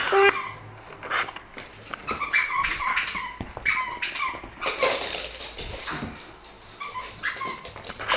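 Dogs whimpering and barking in a string of short, high calls, excited by a new Wobble Wag Giggle Ball toy.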